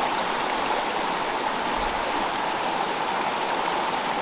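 Fast river water rushing over rocks, a steady, even rush with no breaks.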